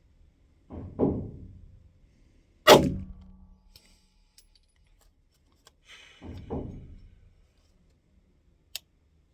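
Three 9mm pistol shots from a Glock 45 firing 147-grain ammunition, about a second in, near the 3-second mark and about 6.5 seconds in, each with a short decaying tail. The middle shot is the loudest and sharpest.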